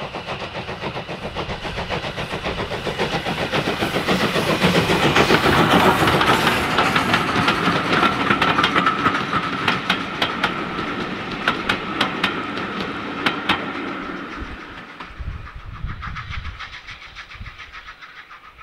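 LSWR T9 class 4-4-0 steam locomotive 30120 passing under steam with a train: its rapid, even exhaust beats build to a peak about five seconds in. The coaches follow with a run of clicks as the wheels cross rail joints and a steady high note, and the sound then fades away.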